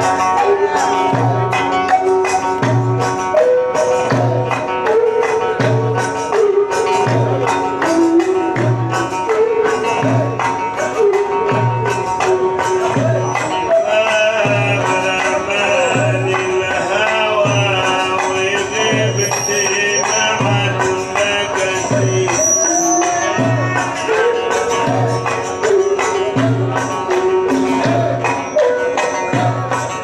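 Live Egyptian Sufi inshad music. A deep drum stroke falls about once a second, with quicker frame-drum and jingle taps between the strokes and a wavering melody line above them.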